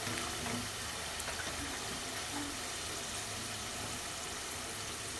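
Spice paste frying in oil in an aluminium pan, a low, steady sizzle; the masala is fully fried, with the oil separating out.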